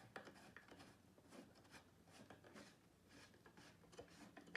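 Near silence with faint scattered taps and light rubbing from engineered-wood furniture panels being handled and fitted together.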